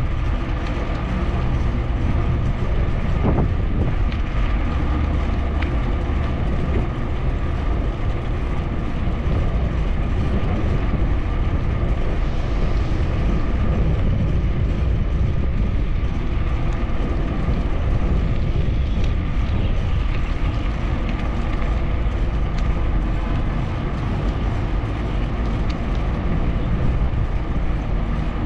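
Bicycle rolling steadily along a paved path, heard from a camera mounted on the bike: a constant low rumble of tyres and wind on the microphone, with small rattles and clicks from the bike.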